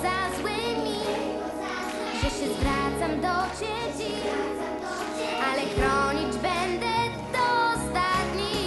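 A young girl singing a pop song into a microphone over backing music, her held notes wavering with vibrato, with a few drum beats in the accompaniment.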